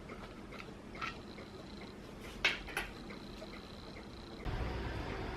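Light clicks and knocks of a plastic toy coin bank being handled, with two sharper clicks about two and a half seconds in, then a low rumble of handling from about four and a half seconds.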